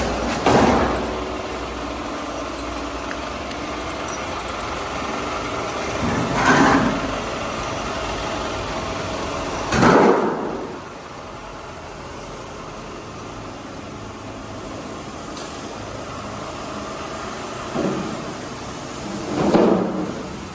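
Oil-drum cutting machine running with a steady hum, broken by several short loud knocks of the steel drum being worked; about halfway through, right after the loudest knock, the low rumble of the machine stops and the hum drops.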